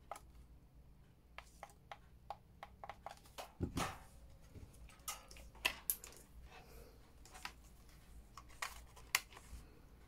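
Handling noise from a DJI Mini 2 remote controller and its battery charging hub on a desk: a quick run of small plastic clicks, about four a second, starting after a second. Then a heavier thump near four seconds, and scattered taps and knocks as the charging hub and its USB cable are handled.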